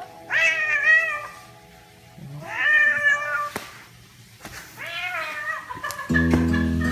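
Domestic cat meowing three times, each call about a second long and bending in pitch, about two seconds apart. Acoustic guitar music comes in near the end.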